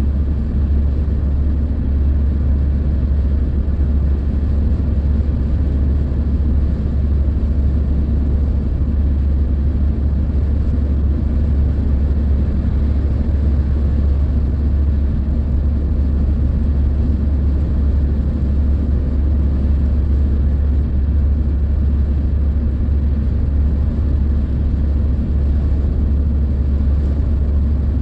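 Steady low rumble of a car cruising at motorway speed, heard from inside the cabin: tyre roar and engine noise.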